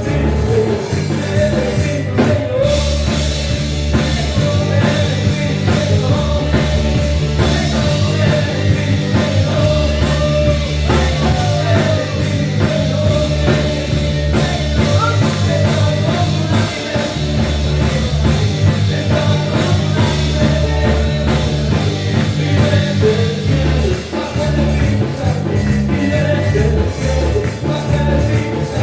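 Loud band music with drums, bass and a steady beat, in the style of a Spanish-language worship song, with a sung or sustained melody line.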